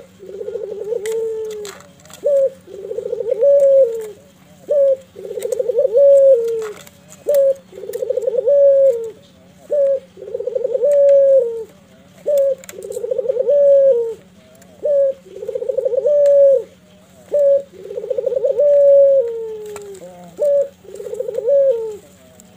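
Barbary dove (ringneck dove) cooing over and over. Each call is a short note followed by a longer rolling coo, repeating about every two seconds.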